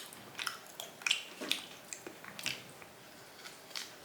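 Wet chewing and lip-smacking of a person eating raw chicken: a string of short, irregular smacks.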